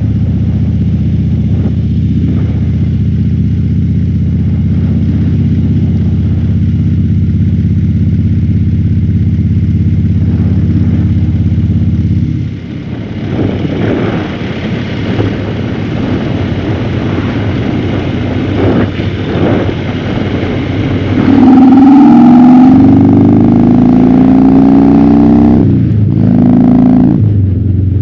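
Harley-Davidson Fat Bob's V-twin through a KessTech ESM3 exhaust in its legal mode, heard from the rider's helmet. It holds a steady cruising note for about twelve seconds, then the throttle closes and the note drops away. About three-quarters of the way through it pulls hard again, rising in pitch, with brief breaks near the end as it shifts gear.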